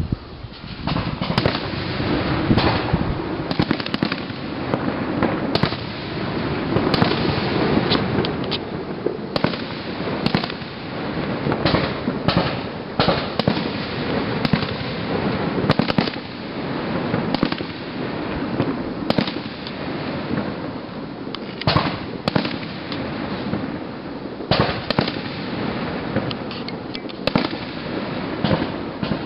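Aerial fireworks shells bursting one after another, with repeated sharp bangs over a dense, continuous crackle.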